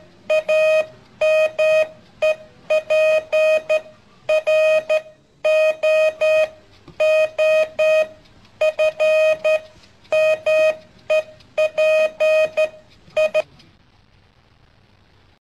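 Electronic alarm beeping in bursts of rapid beeps on one steady tone, a burst a little less than once a second, stopping near the end.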